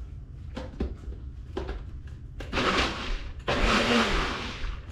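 Nutribullet blender blending melted butter and roasted garlic, run in pulses. A few light clicks come as the cup is seated on the base. The motor starts about halfway in, stops for a moment, then runs again.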